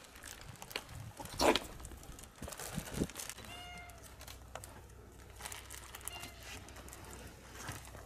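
Domestic cats begging for food: one meows twice, short steady cries about halfway through and near the end. Between them comes rustling and crinkling of food being handled, loudest about a second and a half in.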